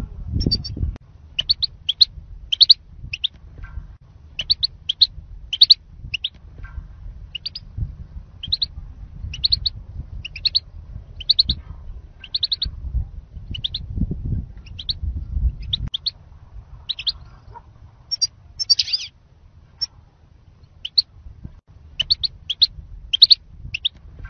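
European goldfinches calling: short, high chirps, often two or three in quick succession, about every second. Low wind rumble on the microphone underneath, heavier near the start and in the middle.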